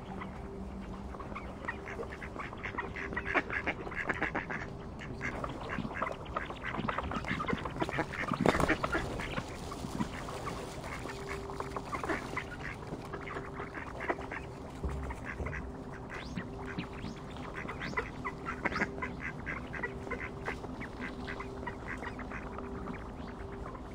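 Mallards quacking in bouts of rapid short calls, with the loudest call about eight and a half seconds in.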